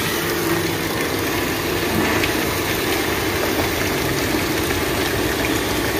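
Pressure-water flush of a choked car radiator: a motor runs steadily while water rushes through and drains out of the cooling system.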